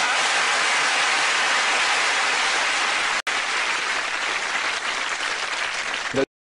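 Studio audience applauding steadily. It breaks off for an instant about halfway through, carries on a little less evenly, and cuts off abruptly near the end.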